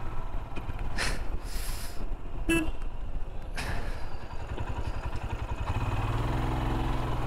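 Royal Enfield Himalayan's single-cylinder engine running as the motorcycle rides through traffic, settling to a steadier low note near the end. A few short rushes of hiss come and go, and a vehicle horn toots briefly about two and a half seconds in.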